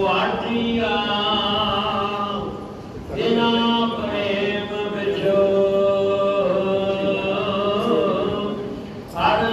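Sikh religious chanting: sung, long held notes, breaking briefly about three seconds in and again near the end.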